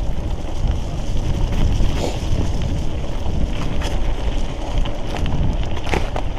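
Wind buffeting the microphone over the low rumble of a mountain bike rolling down a muddy, rutted trail, with a few sharp clicks and knocks scattered through it.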